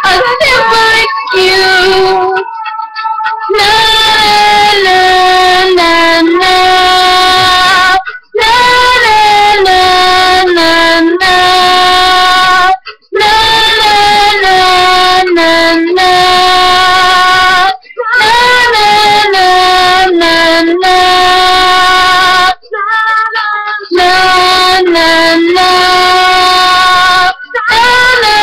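A woman singing solo, holding long notes that slide up and down in pitch, in phrases separated by brief pauses for breath.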